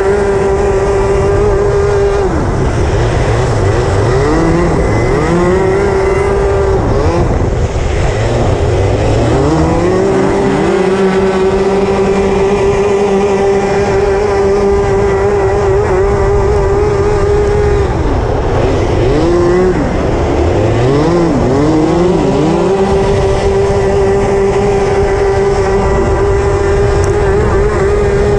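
Racing kart engine at full throttle, its note held steady and high for long stretches, then dropping and climbing back three times as the driver lifts off for corners and accelerates out. The engines of other karts close by can be heard in the drops.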